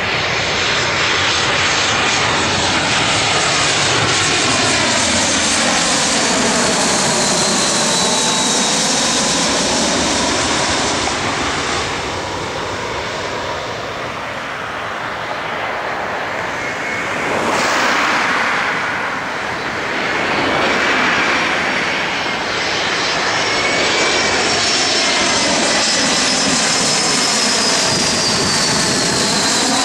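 Turbofan engines of twin-jet airliners on final approach passing low overhead: a steady loud rush of jet noise with high whining tones that slide in pitch as each aircraft goes by. It dips somewhat about halfway through, then swells again.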